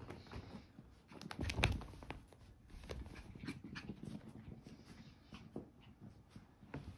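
Small puppies panting and scuffling about while they play, with many light ticks and a louder bump about a second and a half in.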